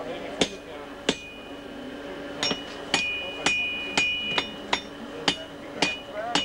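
Hammer blows forging a horseshoe on a blacksmith's anvil: about a dozen sharp metal-on-metal strikes at an uneven pace, many leaving a high, clear ring from the anvil.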